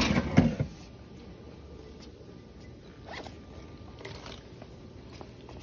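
Industrial double-needle lockstitch sewing machine (model T828-45-064M) given a trial run while it shows error 7: a brief rattling burst of about half a second at the start, then only a few faint clicks. The repairer suspects the fault lies in the pulley or the belt.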